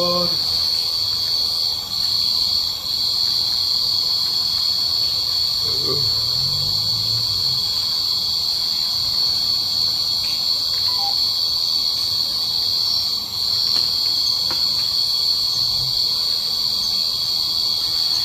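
Steady, high-pitched shrilling of a cricket chorus, dipping briefly a few times.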